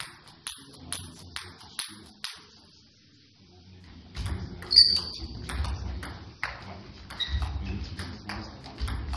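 Table tennis ball bounced about twice a second, six times, before a serve. After a short quiet gap a rally follows: the ball clicking irregularly off rackets and table, with low thuds of footwork on the hall floor and one loud ping about five seconds in.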